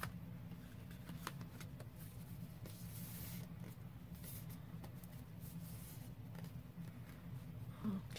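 Soft rustling and handling of paper and card, with a few light taps, over a steady low hum.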